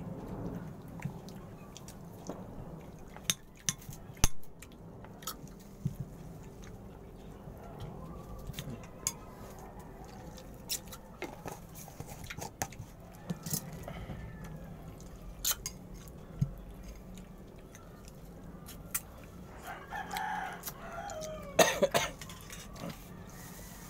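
Scattered sharp clicks and taps from handling a jar and cutting mango at a table, and near the end a rooster crowing once for about two seconds.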